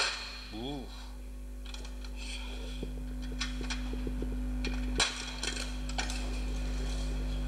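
Slide projector running with a steady hum while its slide-change mechanism clicks several times, with one louder clunk about five seconds in, as slides are cycled through.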